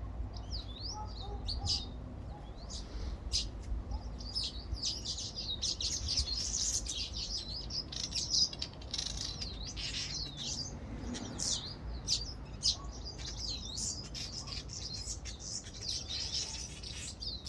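Several small garden birds chirping and tweeting together: many quick, overlapping high chirps and short whistled phrases, over a low steady rumble.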